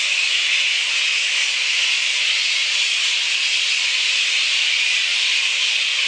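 A colony of hundreds of flying foxes roosting in the trees, their squeaks and chatter merging into a dense, steady, high-pitched din without a break.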